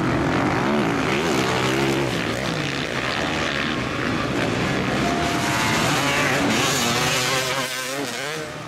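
Motocross bike engines revving on the track, several at once, their pitch rising and falling with the throttle and gear changes. The level dips briefly near the end.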